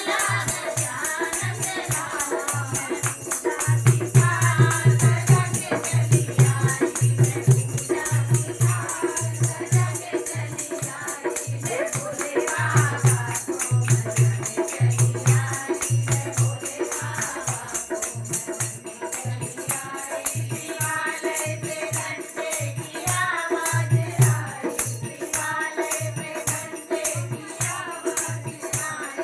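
Hindi devotional song (bhajan) to Shiva: singing over a steady, regular drum beat with a fast shaker rattle.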